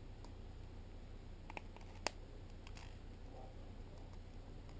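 A few small sharp clicks as a pry tool works at a part inside a stripped Nokia Lumia 925's frame, the loudest about two seconds in.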